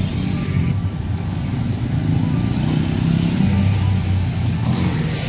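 Motorcycle engines running as a group of bikes rides slowly past, a steady low engine drone, with one bike passing close near the end.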